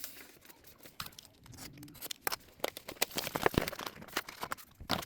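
Packaging of an M.2 SSD being handled and opened: irregular sharp plastic clicks and crinkling, loudest about three and a half seconds in.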